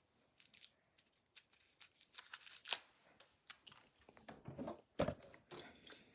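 Faint scattered rustles and scrapes of hands handling trading cards and their packaging, then a dull knock about five seconds in as a cardboard Topps Holiday Mega Box is picked up.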